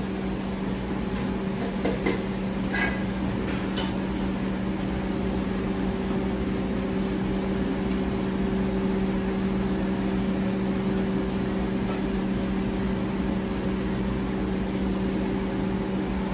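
Steady hum of commercial kitchen machinery (fans and refrigeration), holding a low, even drone, with a few light knocks and clicks in the first few seconds.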